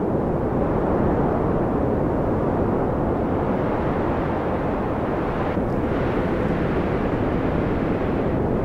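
Steady, low rushing wind of a snowstorm, even in level throughout with no distinct events.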